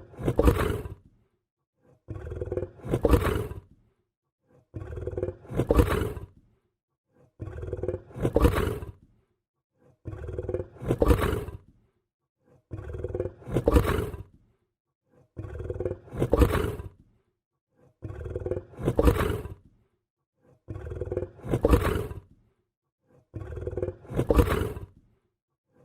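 Lion growling, the same growl repeated about every two and a half seconds as a loop. Each repeat is a softer rumble followed straight away by a louder, longer one.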